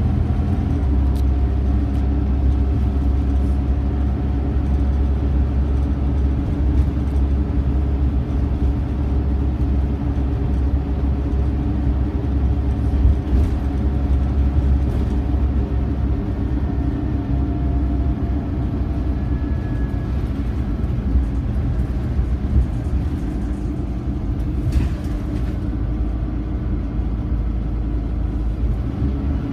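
Scania OmniCity single-decker bus heard from inside the passenger saloon: a steady low diesel engine rumble with drivetrain noise as it runs along, with a faint pitch glide around the middle and a few light rattling clicks from the interior.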